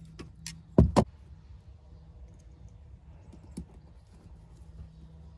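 Needle-nose pliers squeezing a Scotch lock T-tap connector shut on a car wiring harness. It gives two sharp plastic snaps in quick succession about a second in, with a few lighter clicks of tool and connector handling around them.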